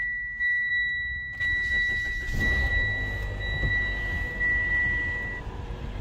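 2018 Mitsubishi Outlander's engine cranking and catching about two seconds in, then idling, confirming that the newly programmed proximity key starts the car. A steady high electronic tone from the car sounds throughout and stops shortly before the end.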